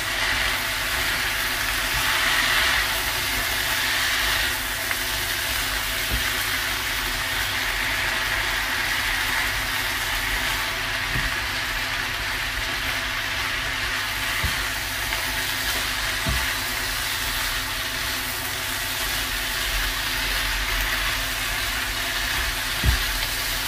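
Kering tempe (tempe strips, peanuts and sweet soy sauce) sizzling as it is stir-fried in a non-stick wok, with a steady hum underneath and a few light knocks of the silicone spatula against the pan.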